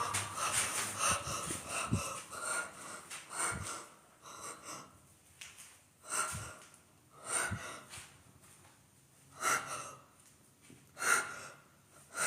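A person breathing hard and audibly, with hissing breaths that come and go every second or two and short quiet gaps between them.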